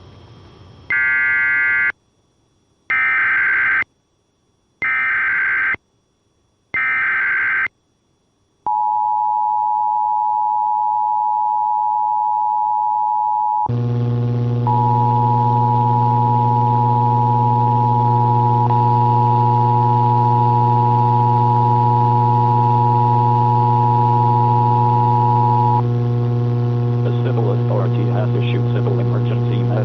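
Emergency Alert System broadcast: four one-second screeches of SAME header data tones, then the steady two-tone EAS attention signal. About five seconds into the attention signal a loud low electrical hum comes in under it. The hum carries on after the tones stop, with a faint voice near the end.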